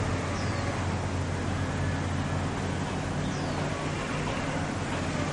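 Steady low rumble of outdoor background noise, with a faint short high descending chirp twice.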